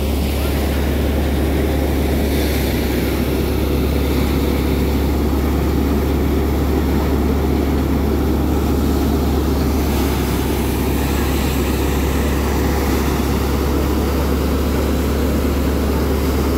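Mahindra tractor engine running steadily under load, driving a paddy thresher, with the thresher's threshing noise. The result is a loud, unchanging low drone.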